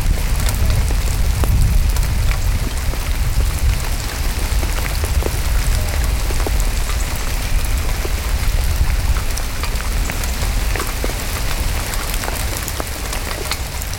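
Heavy rain falling steadily, a dense hiss over the water, with many sharp ticks of drops striking the plastic bag over the camera and a strong low rumble under it.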